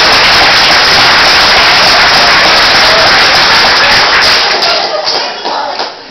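Theatre audience applauding, a dense steady clatter of clapping that dies away near the end.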